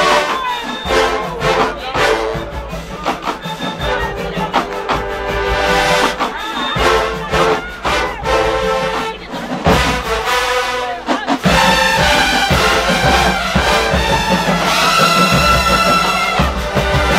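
Marching band brass section (trumpets, mellophones and trombones) playing with percussion hits on the beat. About eleven seconds in, the brass gets louder and moves into full held chords.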